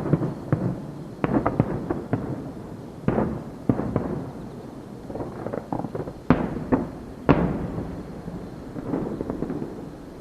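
Fireworks bursting in quick succession, a rapid string of bangs and crackles with two heavy booms about six and seven seconds in, echoing and rumbling between shots.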